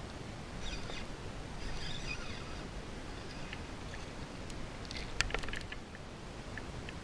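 A hooked bass thrashing and splashing at the water's surface beside the kayak: a cluster of sharp splashes about five seconds in, over a steady outdoor hiss.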